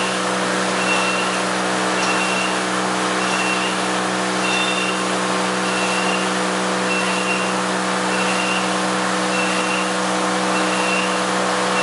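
Yadong SYS-901 tunnel car wash machine running: a steady motor-and-pump hum under the hiss of water jets spraying the car. A short high beep repeats about every 1.2 seconds.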